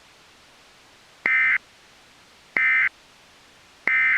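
Emergency Alert System end-of-message code: three short bursts of SAME digital data tones, about a second and a quarter apart, marking the end of an alert broadcast.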